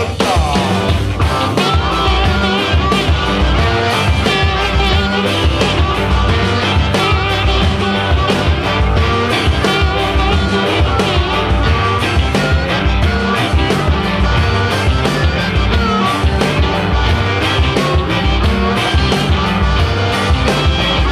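Raw blues-rock music: distorted electric guitar over a steady, driving drum beat.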